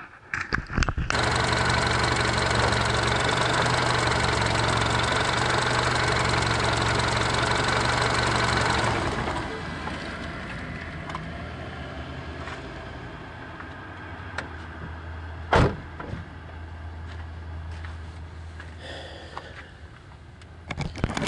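Mini Cooper S turbocharged 1.6-litre four-cylinder cranking and catching, then running at a fast idle that settles to a lower, quieter idle about nine seconds in, on a test start after a new pressure converter was fitted. A single sharp knock about fifteen seconds in.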